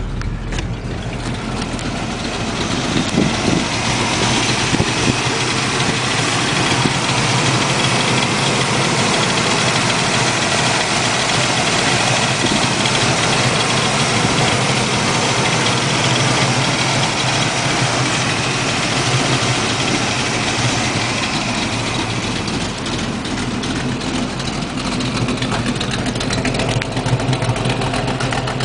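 Small-block Chevy 350 V8 with a Comp XE268H cam idling steadily at about 1000 rpm, running through Hooker headers and a Pypes 2½-inch stainless exhaust with X-pipe and RacePro mufflers.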